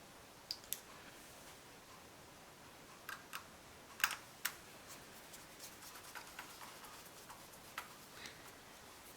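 Light clicks and taps of small plastic model-kit parts and screws being handled and fitted, coming at irregular intervals with the sharpest few about four seconds in.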